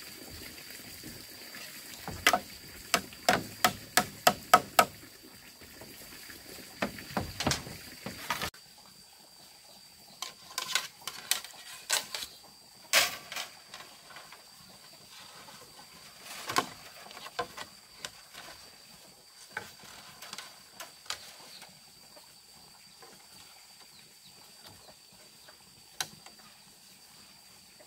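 A quick run of about eight sharp, ringing knocks, a few more a few seconds later, then scattered softer knocks and clicks. A steady high-pitched tone runs underneath.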